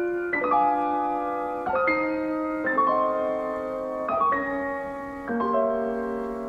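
Background piano music, slow and gentle: a new chord struck about once a second and left to ring.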